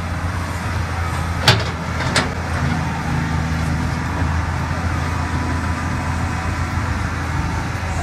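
Diesel engine of a tracked hydraulic excavator running steadily under load as it digs mud, with two sharp metallic clanks about a second and a half and two seconds in.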